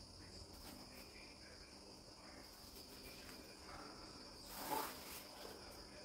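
Crickets chirring steadily in the background, faint and high-pitched. About three-quarters through comes a brief rustle, as a body and clothing shift on a yoga mat.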